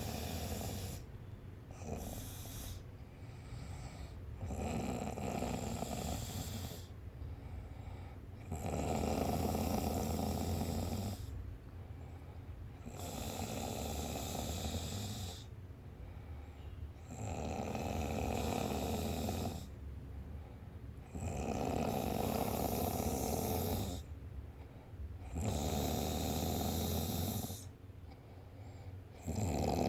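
Steady snoring: a long snore about every four seconds, each lasting about two seconds, with quieter breaths between; the snores grow louder after the first eight seconds or so.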